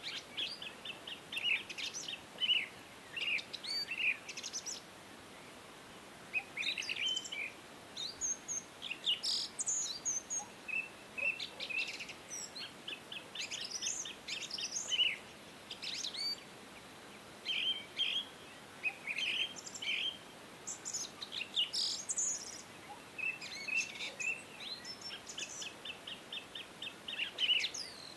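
Birds chirping and singing: many short calls and quick trills, several overlapping at times.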